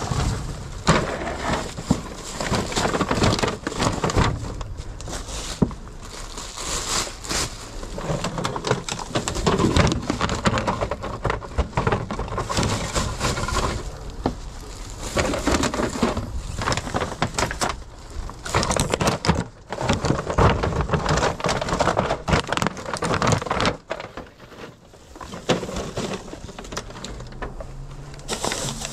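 Plastic shopping bags rustling and crinkling as they are handled and packed in, with irregular knocks of the goods inside being shifted.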